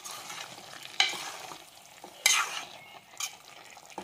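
Metal spoon stirring thick vegetable-and-coconut avial in an aluminium pressure-cooker pot, a few scraping strokes against the pot, the loudest about a second in and just past two seconds.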